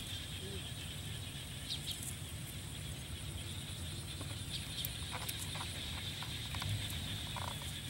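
Outdoor field ambience: a steady high-pitched drone over a low rumble, with a few short, faint chicken clucks in the second half.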